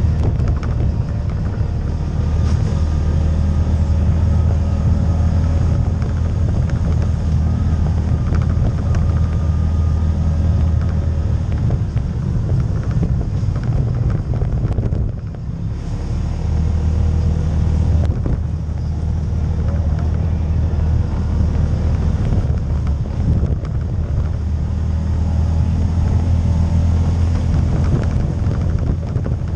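CFMOTO CForce ATV engine running steadily as the quad is ridden, easing off briefly about halfway through before picking up again.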